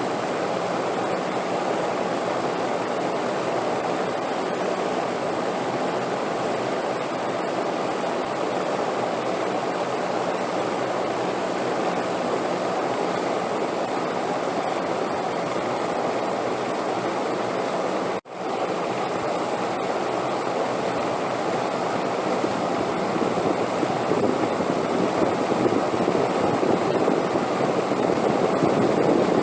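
Steady rushing wind noise, swelling louder over the last several seconds. It cuts out for an instant about 18 seconds in.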